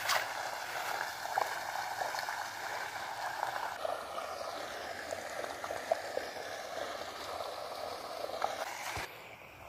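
Steady rush of flowing water, cutting off suddenly near the end.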